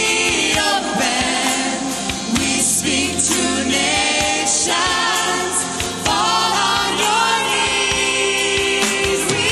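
Live Christian worship music: voices singing together over a band, with drum hits and held bass notes.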